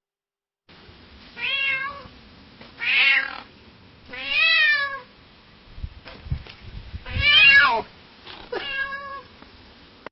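A domestic cat meowing five times, each meow about half a second to a second long and bending in pitch.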